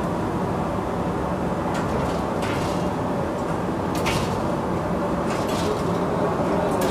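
Bakery machinery running with a steady low rumble, with a few sharp knocks and clatters of metal a second or two apart.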